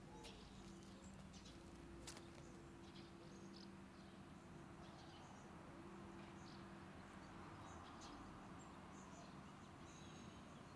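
Quiet outdoor ambience: scattered faint bird chirps over a low steady hum, with a single sharp click about two seconds in.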